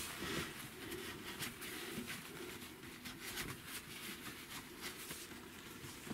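Faint handling noises: small scattered clicks and rustles of hands moving heavy battery cables and wiring around the inverter.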